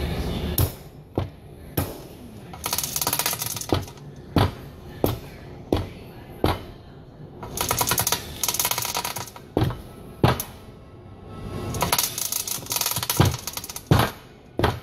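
Sharp metal-on-metal blows, a dozen or so at irregular spacing, struck with a hand tool on the top of a hydraulic breaker's steel body. Between them come three stretches of very rapid metallic clicking, about a second each: about two seconds in, midway, and near the end.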